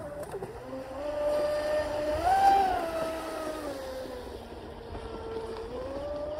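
Deltaforce 35 fast electric RC boat running at speed on a 4S lipo, its TP 4060 brushless motor giving a steady whine. The pitch rises to a peak about two and a half seconds in, sags around five seconds, then climbs again as the throttle comes back on.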